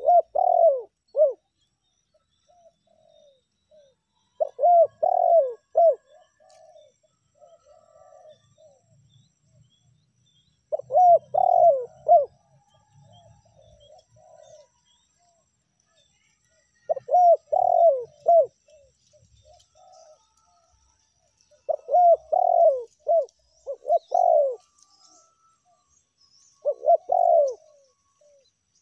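Spotted dove (tekukur) cooing: six phrases of a few short coos, about one every five to six seconds, some followed by softer trailing notes.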